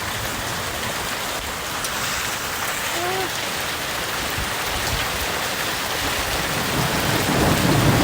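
Small hailstones and rain pelting down steadily, an even hiss of pellets striking the ground and nearby surfaces, with a low rumble swelling near the end.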